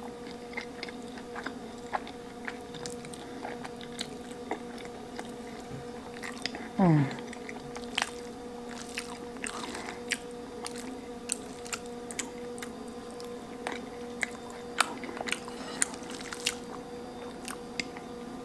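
Close-miked chewing and wet mouth sounds of someone eating creamy pasta, with many small scattered smacks and clicks over a faint steady hum. About seven seconds in, a short hum from the voice, falling in pitch.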